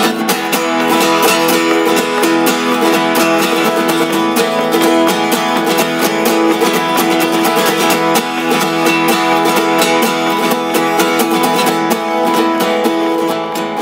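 Two acoustic guitars playing together, strummed chords ringing steadily in an instrumental passage with no singing.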